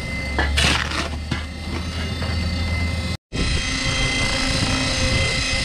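Kushlan concrete mixer running with a steady low hum while a shovel scrapes into a pile of mason sand about half a second in. The sound drops out for an instant about three seconds in, then the mixer carries on running with a few light knocks.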